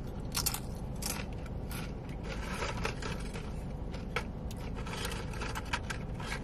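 Crunching and chewing of tortilla chips with dip, close to the microphone: irregular short crisp cracks, several a second.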